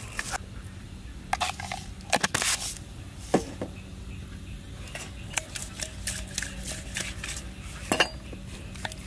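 Stainless steel bowl knocking and clinking as salted tilapia pieces are tossed in it, a scatter of sharp knocks with the loudest about three seconds in and near the end.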